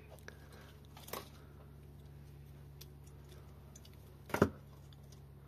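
Small handling noises at a workbench over a steady low hum: a light click about a second in and a single sharp knock near the end.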